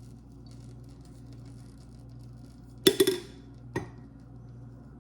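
Glassware clinking once about three seconds in, a sharp knock with a brief ring, then a lighter knock just under a second later, over a low steady hum.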